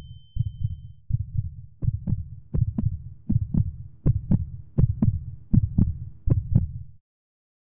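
Heartbeat sound effect: a steady run of low, pulsing thumps, about three a second, growing louder, with a faint steady tone under them in the middle. It cuts off suddenly about a second before the end.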